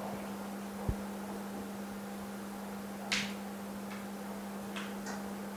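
Steady hum of an LCD separator machine with a built-in pump, with a soft knock about a second in and a few short hisses in the second half.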